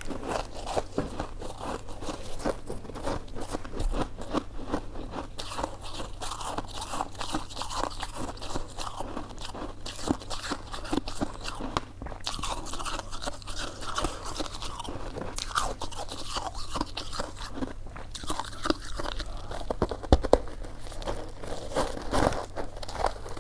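Close-up eating sounds: biting and chewing coconut-flake-coated sticky rice cake, a steady stream of small wet crackles and clicks, with a couple of louder snaps near the end.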